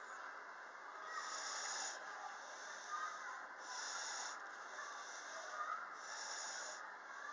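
Handling noise of a kydex-lined leather knife sheath being turned over in the hands: soft rustling with two light clicks, one about three seconds in and one near the middle of the second half. Under it runs a faint hiss that swells about every two and a half seconds.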